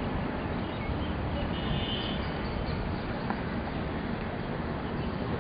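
Steady outdoor background noise with a low rumble, and a faint high chirp about two seconds in.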